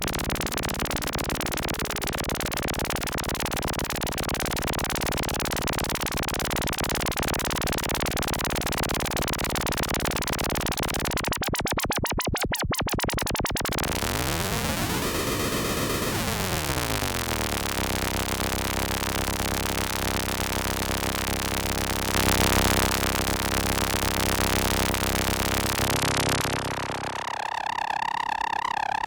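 Behringer Crave analog semi-modular synthesizer playing a hissy noise-laden drone over a low tone. Partway through, a rapid stuttering pulse gives way to a pitch sweep that rises and falls back. Near the end the noise drops away, leaving a wavering high tone.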